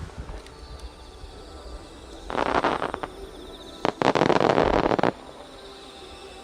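Aerial fireworks crackling in two bursts, one about two seconds in and a longer, louder one at about four seconds that cuts off suddenly.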